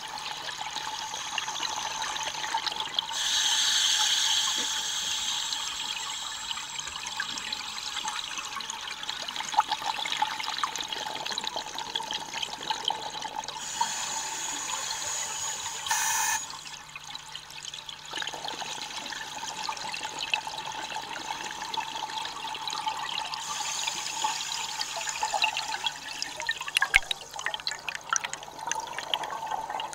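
Scuba diver's breathing recorded underwater: exhaled bubbles from the regulator rush and bubble past in surges about every ten seconds, over a faint steady low hum.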